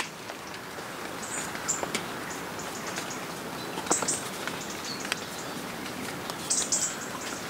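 Steady hiss of falling rain, with short high bird chirps three times: about a second in, around the middle, and near the end.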